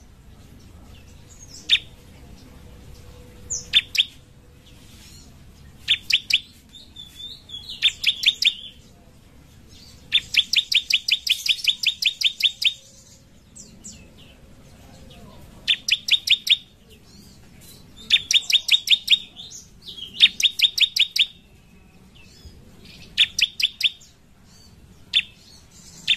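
Bar-winged prinia (ciblek) singing loud, shrill bursts of rapid, evenly spaced notes, about eight a second, each burst lasting one to nearly three seconds, with pauses and a few single sharp calls between.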